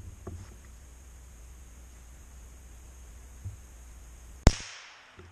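A single .22 rifle shot about four and a half seconds in, sharp and loud, its echo dying away over about half a second. Before it, only a faint low rumble.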